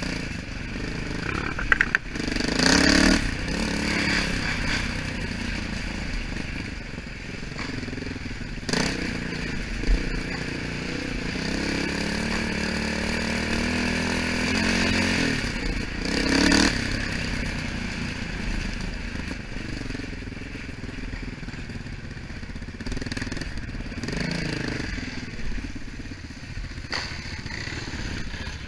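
Dirt bike engine running steadily while riding a forest trail, its pitch rising and falling with the throttle. A few sharp knocks are heard along the way.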